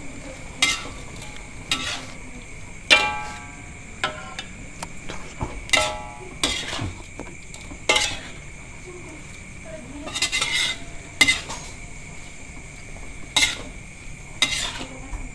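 Metal spatula scraping and knocking against an aluminium wok while stir-frying water spinach: about a dozen irregular clanks, a few ringing briefly.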